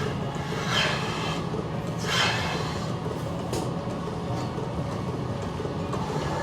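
Steady machinery hum and rumble, with two short hissing rushes about one and two seconds in.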